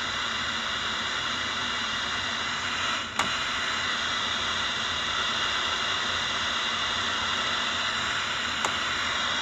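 Steady hiss of static from the speaker of a Legenda P-305T radio-cassette player tuned to its TV sound band with no station coming in. There is a sharp click about three seconds in and a lighter one near the end.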